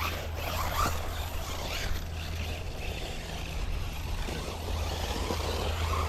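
1/16-scale HSP electric RC cars with brushless motors driving off-road, their motor whine rising and falling in short bursts of throttle, over a steady low rumble.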